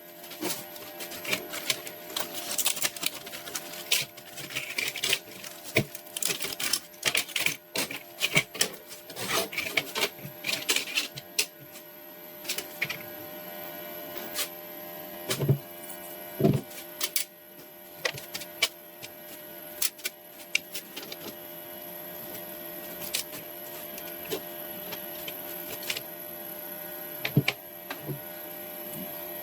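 Small metal pistol parts being handled, with irregular sharp clicks and taps. They come thick and fast for the first twelve seconds or so, then more sparsely, over a faint steady high whine.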